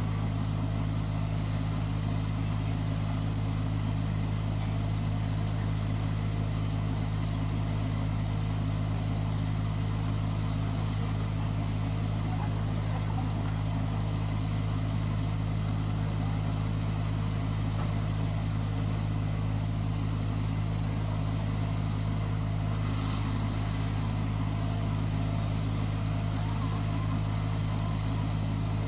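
ISEKI 325 rice harvester running steadily with a constant low engine drone.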